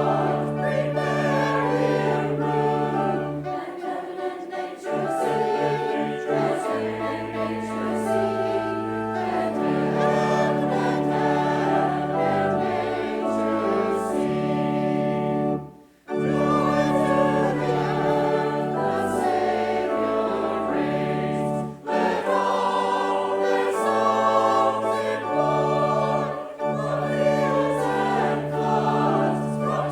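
Church choir singing with accompaniment, long-held low notes underneath changing chords. The music breaks off for a moment about halfway through, then carries on.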